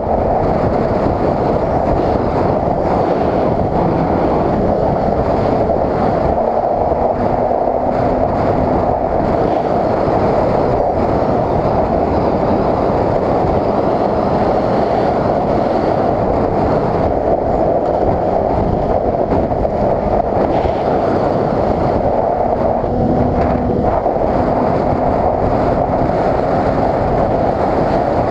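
Snowmobile running at speed, its engine a loud, steady noise heard from the rider's seat.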